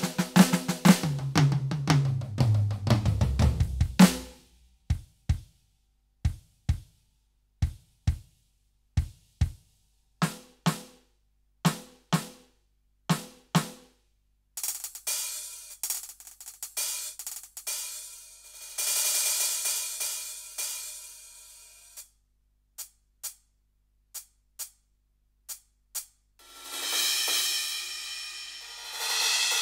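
Roland TD-17KVX electronic drum kit sounds: a fast fill rolling down the toms, falling in pitch, then single drum strikes about once every 0.7 seconds. After that come ringing cymbal washes with a few light ticks, and a loud cymbal crash near the end.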